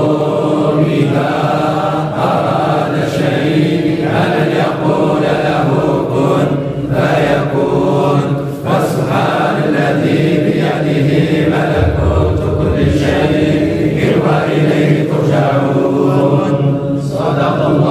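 Men reciting the Qur'an aloud together in a sustained unison chant, the voices flowing in long phrases.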